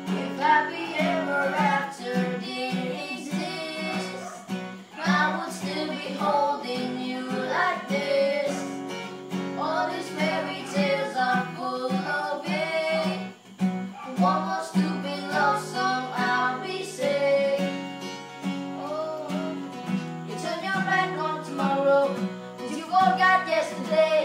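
Singing over an acoustic guitar.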